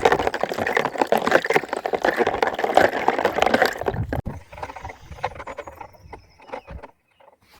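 Water sloshing and bubbling with many small clicks and taps, busy for about four seconds, then thinning out to scattered clicks and dying away near the end.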